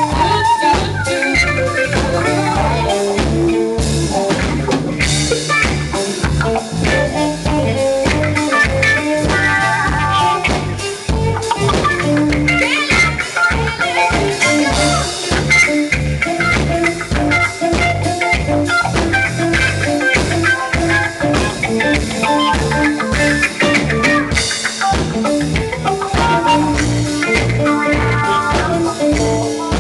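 Live band playing: electric guitar over a drum kit keeping a steady beat.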